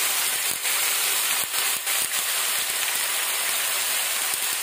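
Chopped onions, capsicum and tomatoes sizzling steadily as they fry in hot mustard oil in a steel kadai.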